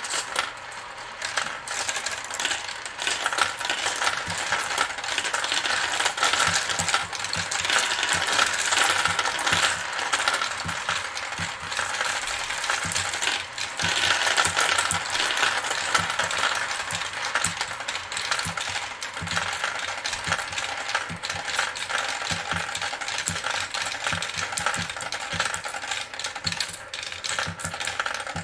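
A cupful of glass marbles clattering down a plastic marble run: a continuous dense stream of clicks and rattles as they roll through the tracks and funnels.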